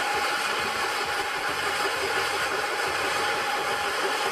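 Quarry stone-block cutting machine running, its large circular saw blade cutting into the rock: a steady mechanical drone with a hiss over it.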